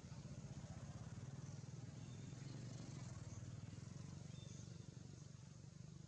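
A steady low engine rumble, as of a motor idling, with a few faint short high chirps over it.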